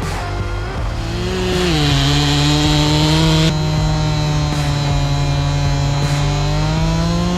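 Stihl 400C two-stroke chainsaw running at high revs. About one and a half seconds in, the revs drop as the chain bites into a large wooden stump, and it then cuts steadily under load.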